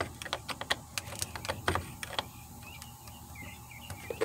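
Metal clicks and knocks as a socket wrench is fitted onto the spark plug of a Craftsman 42 cc chainsaw, the loudest knock a little under two seconds in. Birds chirp in the background in the second half.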